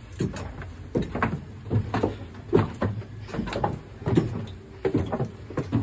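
Footsteps climbing stone spiral stair steps: irregular thuds, about three a second.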